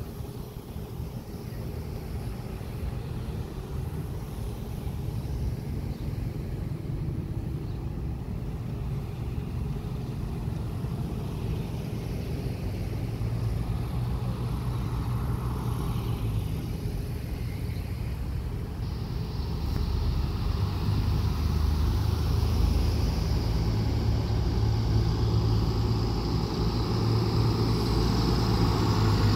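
Vehicles in a slow procession passing close by, with engine and tyre noise from police SUVs and a car. From about two-thirds of the way in, a fire engine's diesel engine grows steadily louder as it approaches.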